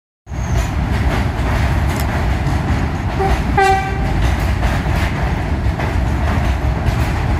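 Vintage New York City subway train pulling into an elevated station, its wheels making a steady rumble on the rails. Its horn gives two short toots about three and a half seconds in.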